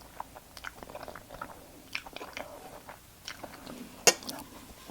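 Close-miked chewing of a mouthful of food, with many small irregular wet clicks and a sharper click about four seconds in.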